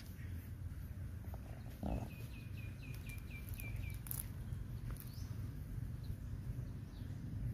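A bird calling a quick series of short, repeated high chirps, about five a second, for about two seconds in the middle, over a steady low outdoor rumble. A brief soft thump comes just before the chirps.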